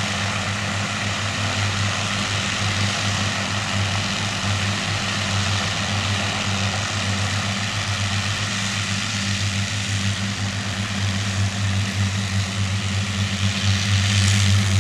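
Avro Lancaster NX611 "Just Jane" taxiing on grass, its four Rolls-Royce Merlin V12 engines running in a steady deep drone. It grows louder over the last few seconds as the bomber draws close.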